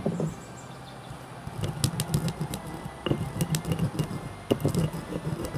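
Stone pestle crushing and grinding whole spices (coriander seeds, candlenuts, cinnamon sticks) in a flat stone mortar: a rough, uneven grinding broken by sharp cracks as the seeds and nuts break, starting about a second and a half in. A single sharp knock at the very start.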